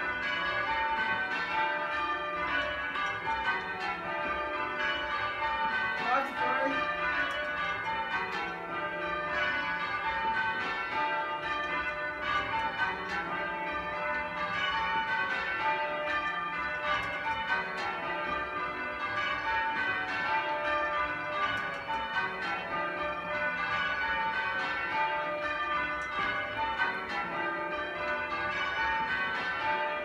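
Change ringing on a 20 cwt ring of eight church bells, heard from the ringing chamber below: a continuous, evenly paced stream of bell strokes from the bells swung full circle.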